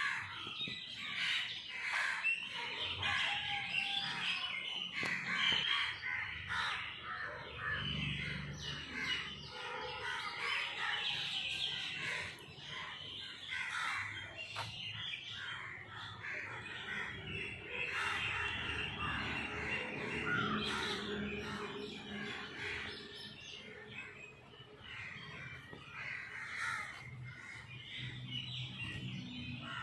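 Birds chirping and calling, many short calls overlapping.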